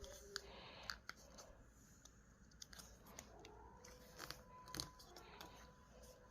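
Faint paper handling: a sheet of paper being folded and creased, with scattered soft crinkles and taps.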